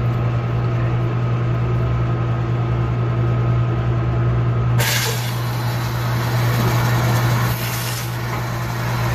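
Steady low machine drone, joined suddenly about halfway by a loud rushing hiss: a suction hose drawing sewage water and air out of a clogged toilet drain.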